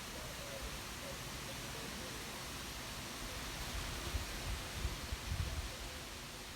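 Wind rustling through tree leaves in a steady hiss, with gusts buffeting the microphone as a low rumble between about four and five and a half seconds in.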